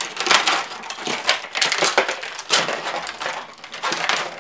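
Makeup cases and applicators being handled: an irregular run of sharp clicks, taps and rustles as containers are opened and picked through.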